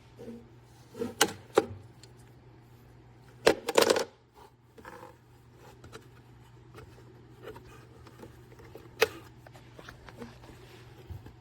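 Several sharp clicks and knocks of objects being handled, with a loud cluster about three and a half seconds in and another knock later on, over a faint steady low hum.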